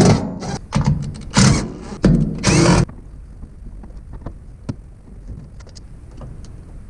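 Several short bursts of a power driver whirring as it backs bolts out of the car's interior trim, then a few small clicks and taps of loose parts.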